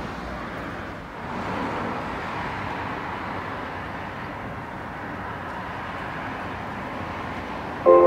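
Steady background noise, then just before the end an outdoor public-address horn loudspeaker suddenly starts the municipal evening time-signal chime: a loud melody of sustained, horn-like tones.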